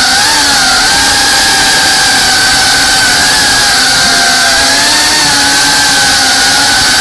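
FPV drone's brushless motors and propellers whining steadily in flight, heard from a camera mounted on the drone. The pitch wavers slightly as the throttle changes, over a constant hiss of air rush.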